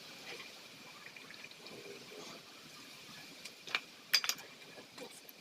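Faint background noise with a few short, sharp clicks or knocks about four seconds in, the loudest just after four seconds.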